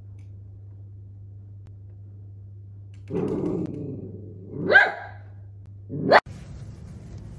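Miniature dachshund giving a low rough growl about three seconds in, then two sharp barks that rise in pitch, about a second and a half apart. The sound cuts off abruptly right after the second bark.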